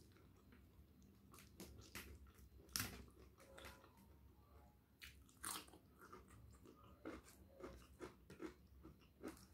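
Close, quiet eating sounds: crunching and chewing of raw cabbage, with crisp clicks of cabbage leaves torn by hand. The clicks come irregularly and the sharpest is about three seconds in.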